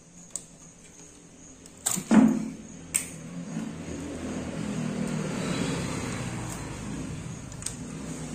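A few sharp clicks and knocks from hoses and connectors being worked loose on a fuel-injected motorcycle throttle body, the loudest about two seconds in. After that there is a steady low rumble in the background.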